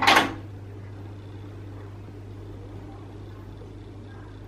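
A steady low hum with faint hiss. A brief breathy noise sounds at the very start.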